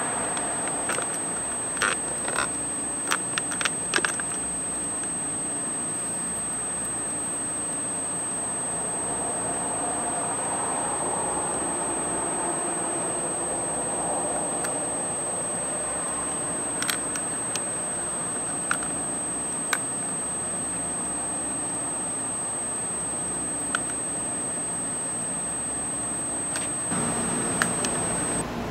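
Steady, high-pitched electronic whine from a night-vision scope's image-intensifier power supply, over a constant hiss. A cluster of sharp clicks comes in the first few seconds and a few single clicks follow later. The whine cuts off near the end.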